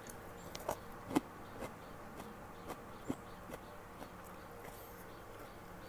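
Soft eating sounds: scattered little clicks and mouth smacks of chewing fried instant noodles and of chopsticks working the noodles on the plate, the clearest about a second in, over a faint steady hum.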